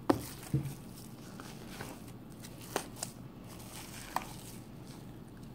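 Hand squeezing and poking bubbly, jiggly slime: wet squishes with sharp pops and crackles as air pockets in the slime burst, the loudest two in the first second and a few smaller ones about three and four seconds in.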